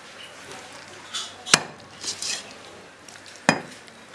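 Kitchen clatter: two sharp knocks of metal kitchenware, about two seconds apart, with faint clinking between them.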